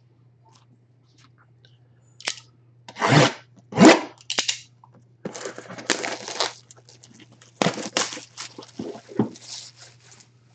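A sealed card box being torn open by hand: packaging tearing and crunching in a series of short rips, the loudest about three and four seconds in.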